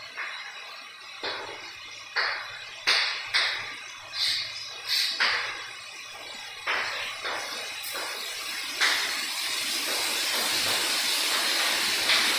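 Chalk tapping and scraping on a blackboard in short, sharp strokes, about one or two a second, as numbers and letters are written. From about nine seconds in, a steady hiss rises and holds.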